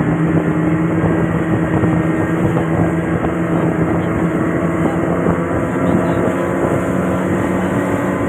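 Engine running steadily at a constant speed, with an even hum that holds one pitch throughout.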